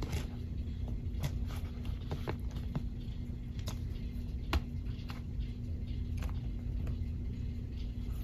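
Faint, scattered clicks and taps of a plastic action figure being handled, posed and set down on a diorama floor, the loudest about four and a half seconds in, over a steady low hum.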